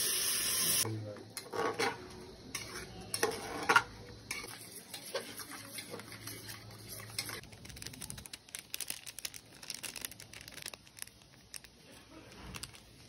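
Running water that cuts off sharply about a second in. Then steel kitchenware clattering, with utensils knocking against steel pots and plates, the sharpest knock near four seconds. After that comes quick light clicking and scraping of a spoon stirring curd in a steel bowl.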